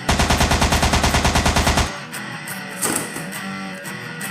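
Rapid machine-gun fire, a fast even run of shots lasting about two seconds before it stops. Guitar background music plays throughout.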